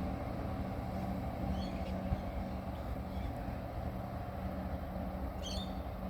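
Steady low rumble of a train, with a constant low hum under it. Two brief high chirps cut through, about a second and a half in and again near the end.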